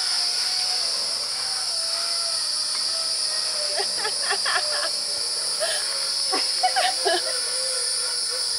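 Steady high-pitched drone of forest insects. A faint wavering whine slowly falls in pitch beneath it, and a few short clicks and chirps come about four to seven seconds in.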